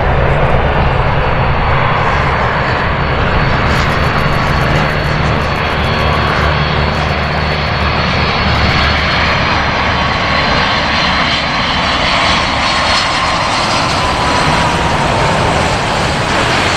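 The four turbofan engines of a Lockheed C-5 Galaxy on landing approach: a steady, loud jet roar with a thin high whine over it. The whine slides slightly lower in the last few seconds as the aircraft comes past.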